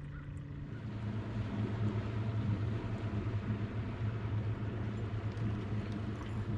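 A boat motor running steadily with a low hum that gets louder about a second in.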